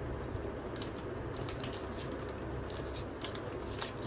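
Light clicks and scratches of small hardware being handled, the sheath clip's screws and washers, over a steady low hum of room noise.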